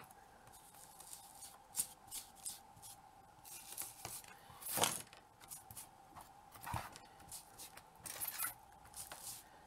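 Foam ink blending tool scrubbed over a textured board in short strokes, giving soft, irregular dry scratching and rubbing sounds, with one louder stroke about halfway through.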